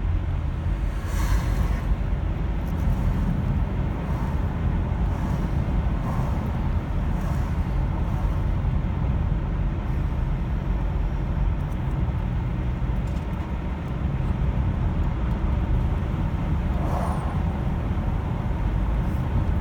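Steady low rumble of a car driving along a road, engine and tyre noise heard from inside the moving car's cabin.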